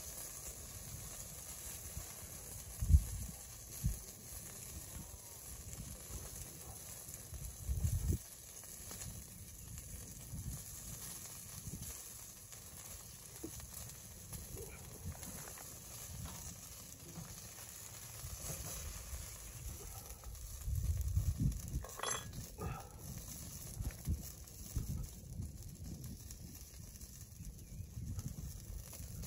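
Faint steady outdoor hiss with a few low thumps, the loudest about three seconds in, and small clicks and rustles of hands handling food while eating.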